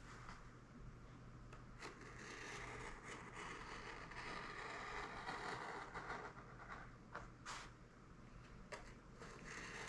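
Faint, uneven rasping scrape of an X-Acto hobby blade cutting through balsa wood sheeting over foam, with a few small clicks.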